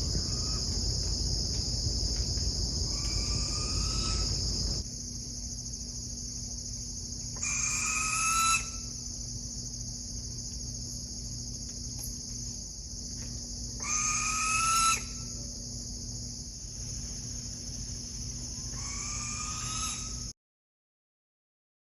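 An owl calling: four short rising calls, each about a second long and a few seconds apart, over a steady high trilling of insects. The recording cuts off suddenly near the end.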